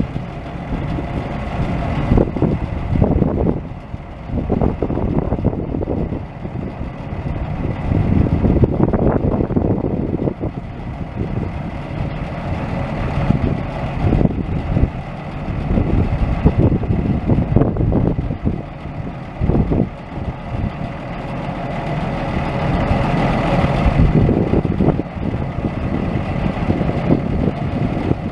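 1978 Ford 7000 truck's engine running while its scissor-lift flatbed is lowered, with irregular knocks and clanks.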